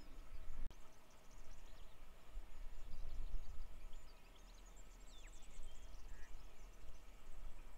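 Wind rumbling on the microphone, rising and falling, with birds chirping faintly in the background and a short falling whistle about five seconds in.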